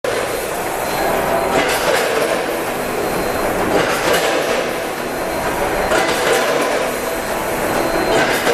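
Multihead combination weigher running with sesame seeds: a steady rattling hiss of seeds moving over the vibrating steel feed pans, swelling roughly every two seconds.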